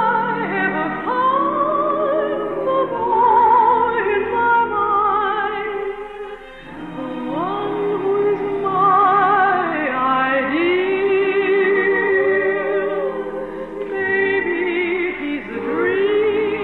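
Operatic singing with strong vibrato: long held notes that glide between pitches, over orchestral accompaniment, with a short break about six and a half seconds in. The sound is dull, with no high treble, as in an early-1950s radio broadcast recording.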